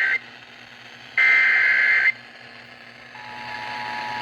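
Emergency Alert System SAME header data bursts: a harsh digital screech that ends just after the start, then a second one-second burst. About three seconds in, the steady two-tone EAS attention signal starts and holds.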